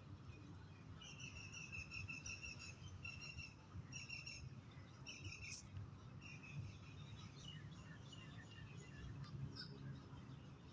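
Faint bird calls: a run of short, clear trilled phrases over the first half, then scattered single chirps, over a low steady background hum.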